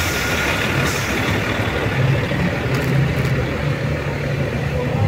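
Volvo tour bus's diesel engine idling with a steady low hum.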